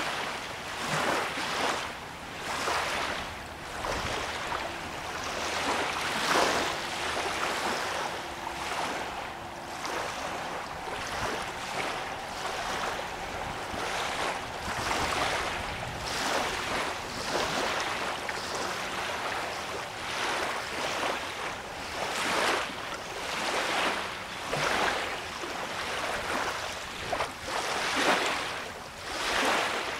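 Small lake waves lapping at the shore, coming in irregular swells every second or two.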